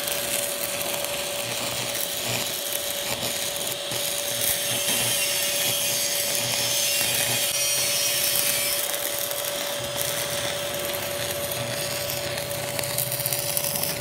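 Stick (shielded metal arc) welding: the electrode's arc crackling and sizzling steadily as a rebar anchor is welded to a steel rafter, with a steady hum underneath.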